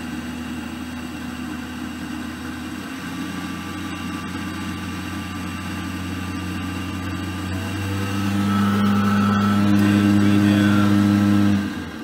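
Navien NR-240A tankless water heater's combustion blower running through its startup sequence: a steady hum that shifts pitch a couple of times, grows louder about eight seconds in, then drops away sharply just before the end.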